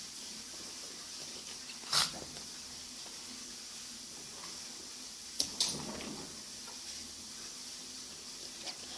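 A senior dog making a few short, sharp sounds over a steady hiss: one about two seconds in, two close together in the middle, and a faint one near the end.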